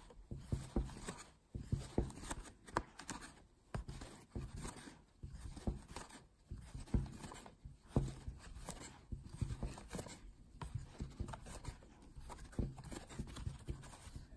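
A metal crochet hook working yarn through single crochet stitches, with hands handling the piece: soft scraping and rustling with many small irregular clicks.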